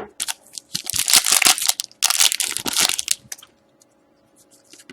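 Plastic wrapper of a trading-card pack crinkling as it is torn open and handled, in two rustling bursts of about a second each, then a few light clicks.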